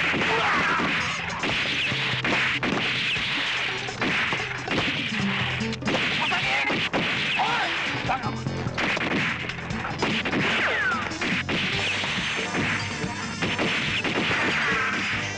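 Gunfire sound effects in a film shootout: many shots in quick succession, with whines sliding down in pitch like bullet ricochets.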